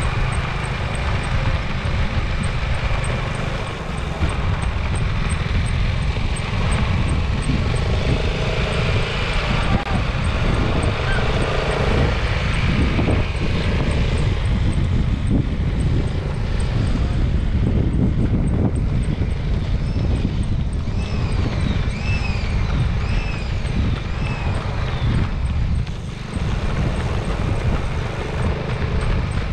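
Steady low rumble of a vehicle with wind noise on the microphone, and a faint high ticking throughout. Near the end come about six short chirps that rise and then fall, roughly one a second.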